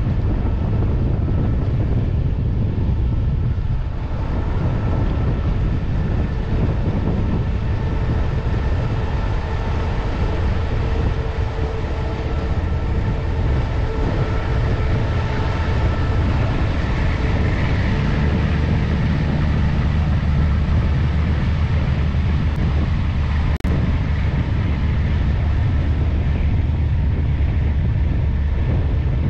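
Steady low engine drone of a river motor ship, with several steady tones riding on a low rumble. It swells somewhat louder about halfway through.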